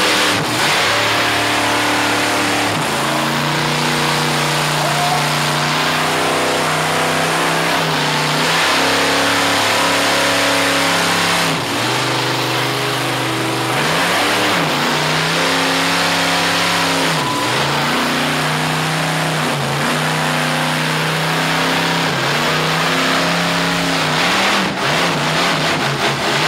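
A turbocharged diesel Hummer mega truck and a supercharged V8 monster truck running hard under load as they pull against each other in a tug of war, the diesel pouring black smoke. The engine pitch rises and falls repeatedly, with short dips about twelve and fifteen seconds in.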